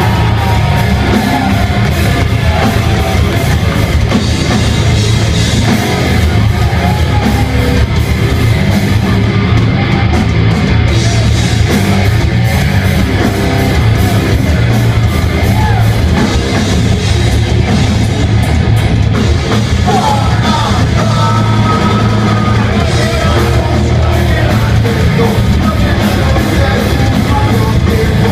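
Heavy metal band playing live: electric guitars, bass and drum kit at a steady loud level, with a sung and shouted vocal near the start and again about two-thirds of the way through.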